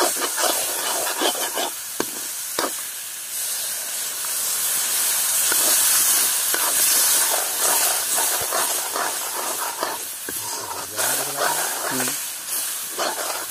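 Chicken masala frying in a large kadai, stirred with a metal spoon that clicks and scrapes against the pan. A few seconds in, liquid hits the hot pan and sets off a loud hiss of steam and sizzling that swells and then slowly eases as the gravy simmers.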